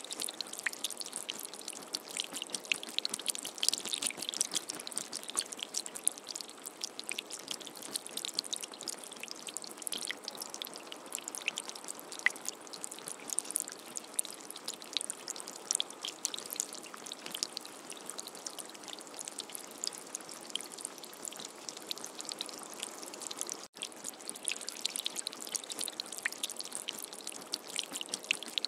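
Light rain pattering: a dense, even crackle of small drops with a steady hiss beneath. It cuts out for an instant about five seconds before the end.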